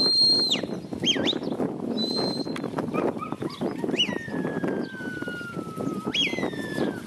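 A stockdog handler's whistle commands: a held high whistle at the start, short up-and-down whistles about one and two seconds in, a long whistle that drops and then slides slowly lower from about four seconds, and a last rising-then-falling whistle near the end. Under them, cattle hooves shuffle and trample over dry ground as the herd is moved.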